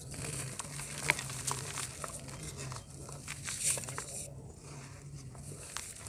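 Soft, chalky dirt blocks crushed and crumbled by hand: gritty crackling with small sharp snaps as pieces break, the sharpest about a second in, growing sparser near the end.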